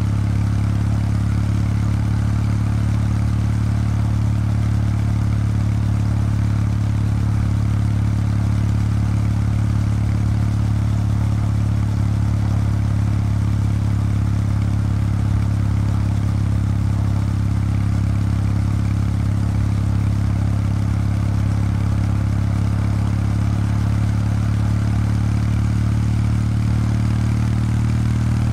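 Kawasaki W800 Street's air-cooled parallel-twin engine running through its stock exhaust at a steady engine speed while the bike is ridden. The pitch shifts slightly near the end.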